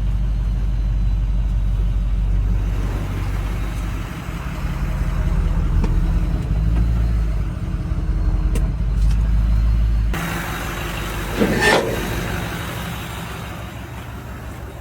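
Ford 6.0 PowerStroke V8 turbo-diesel in a dump truck running steadily under load with 4 tons of sand aboard. About ten seconds in the deep engine rumble drops away sharply as the truck eases off, and a short rising squeal follows a moment later.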